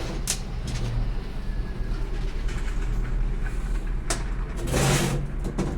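A steady low engine hum runs throughout, with a few sharp clicks and a brief burst of hiss about five seconds in.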